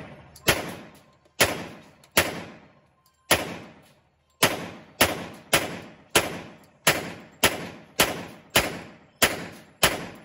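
Glock pistol fired about fourteen times at a steady slow pace, the first few shots about a second apart and the rest nearly two a second. Each shot echoes off the concrete walls of the indoor range.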